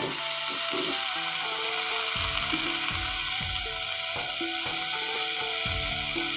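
Chopped leafy greens and vegetable pieces sizzling and crackling as they are dropped by hand into a hot pan of spiced oil, with background music of held, stepping notes underneath.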